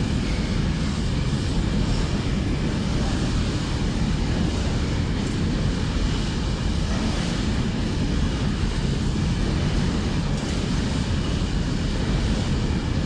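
Freightliner bogie hopper wagons rolling past on the rails: a steady, unbroken low rumble of wheels and wagon bodies.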